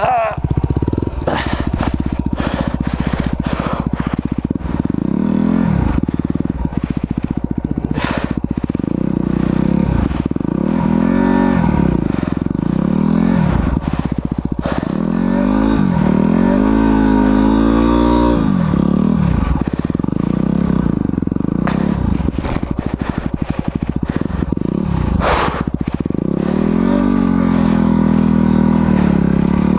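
Single-cylinder four-stroke dirt bike engine being ridden, its revs rising and falling again and again as the rear wheel spins for traction in snow. A few sharp knocks are heard, one at about 8 seconds and one at about 25 seconds.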